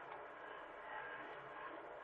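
Hitachi mini excavator's diesel engine running steadily, with a faint steady whine over it.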